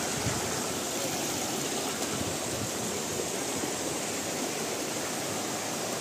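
Shallow rocky stream rushing steadily over and between boulders.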